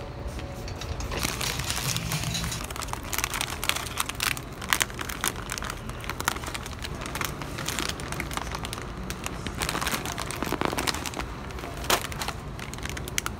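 Plastic chip bags crinkling and crackling as they are handled and pulled off a wire store rack, in irregular sharp bursts over a low steady background hum.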